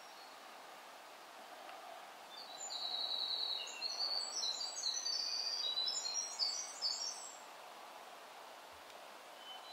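A songbird singing one long, high, rapid song of many short notes, starting about two and a half seconds in and lasting about five seconds, over a steady faint hiss of woodland air.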